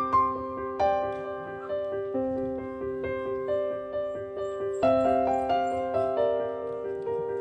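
Background piano music: a gentle tune of repeated notes over held chords, changing chord about every second.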